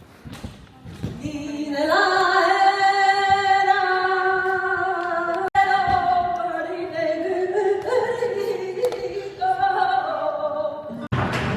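A flamenco singer's solo voice, unaccompanied, holding long drawn-out notes that slide and waver in pitch. Just before the end it gives way abruptly to a loud, dense noisy sound.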